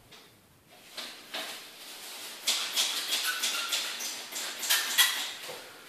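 Caulking gun being worked: from about two seconds in, a run of quick, irregular clicks and scrapes as the trigger is squeezed and the rod advances, with a brief squeak.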